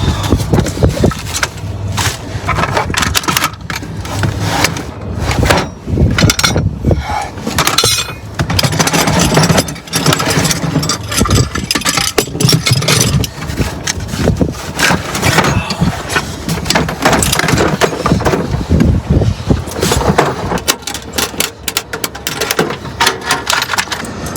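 Irregular clattering, knocking and rattling as gear, plastic gold pans among it, is pulled out of a van and shifted around, over a steady rush of wind.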